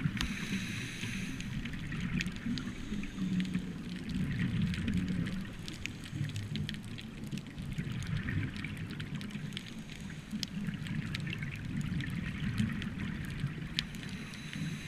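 Underwater sound of a scuba diver breathing, heard through the camera housing: a continuous low bubbling rumble from exhaled bubbles and the regulator, with scattered faint clicks and crackles. A brief higher hiss comes at the start.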